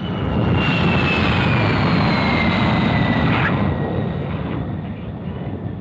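de Havilland Vampire jet fighter flying past: a rushing jet noise with a high whistle that slowly falls in pitch, the whistle fading out after about three seconds and the roar dying away toward the end.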